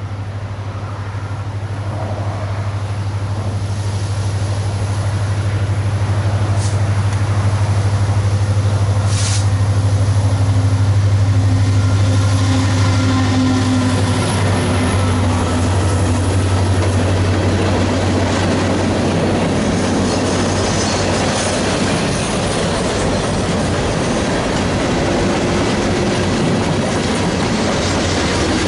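Union Pacific freight train passing close by. The diesel locomotive's engine drone grows louder as it approaches and is loudest about a third of the way in. After it, the tank car, boxcars and covered hoppers keep rolling past with a steady rumble and clatter of wheels on the rails.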